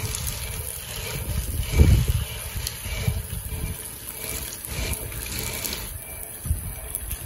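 Heavy rain pouring down, a steady hiss of water, with a few low rumbles under it, the loudest about two seconds in.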